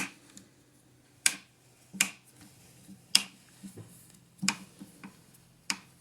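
Sharp metallic clicks, six in all at roughly one-second intervals, as a bearing puller is worked on an Indiel AVI 128 alternator's shaft and the worn bearing starts to give.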